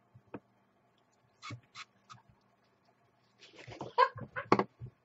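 Wordless vocal reactions to a mouthful of sour Warheads candy spray: after a small click and a quiet stretch, about three and a half seconds in comes a run of short cries from the woman tasting the sour spray, mixed with the other woman's laughter.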